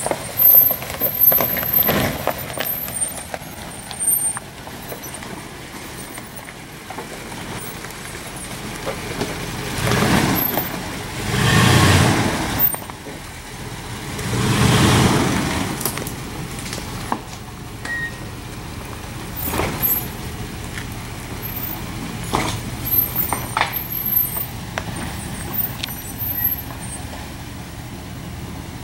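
Dodge Ram 2500 pickup crawling over a rocky trail: its engine runs low and steady, swelling twice as it is given throttle partway through, with scattered knocks and clunks from the tyres and suspension over rocks.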